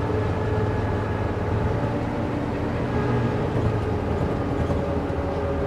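Mercedes-Benz O405 N² city bus's six-cylinder diesel engine idling steadily while the bus stands still.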